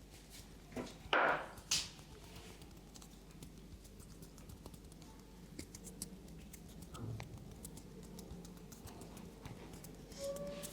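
Head massage by hand: two short, loud rustling rubs of hands on hair and scalp about a second in, then faint light taps and clicks.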